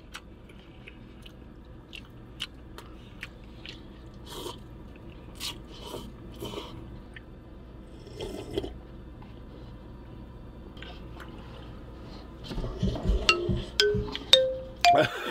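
Eating sounds from a cup of instant noodles: chopsticks clicking against the paper cup, slurping and chewing, and a slurp of broth drunk from the cup about eight seconds in. Near the end a comic sound effect of stepped rising tones starts.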